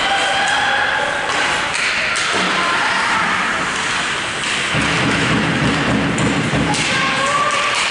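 Ice hockey game noise in a rink: shouts from spectators and the bench, sharp clicks of sticks and puck, and a low rumbling thud as players crash into the boards about five seconds in.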